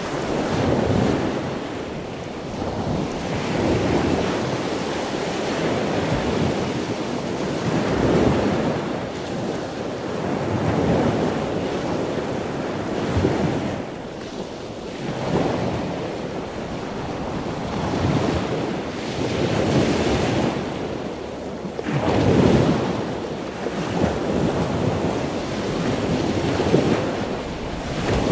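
Sea waves washing on the shore with wind: a steady rushing that swells and eases every two to four seconds.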